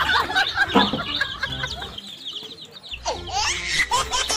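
A crowd of chicks cheeping, many short high peeps overlapping. Louder rising peeps come in near the end.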